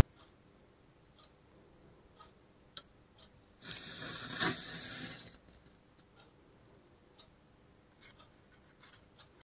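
A sharp click about three seconds in, then about a second and a half of hissing and crackling as the wire ends on the plywood board flare up and burn under current from the relay circuit, with faint small ticks afterwards.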